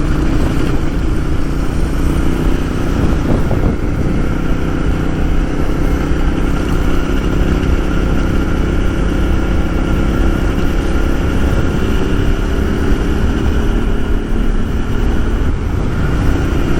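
Motorcycle engine running steadily at cruising speed, with a constant rush of wind noise from riding.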